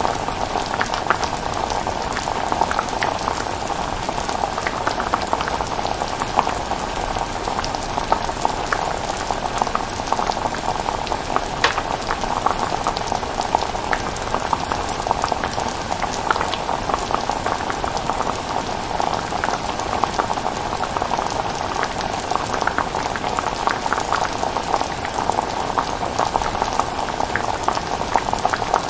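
Chilli bubbling as it cooks: a steady simmer with a constant scatter of small pops and plops from bursting bubbles.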